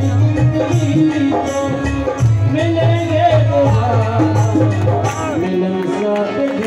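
Devotional music over a loudspeaker: a voice singing a melody, backed by instruments and a steady beat of rattling hand percussion.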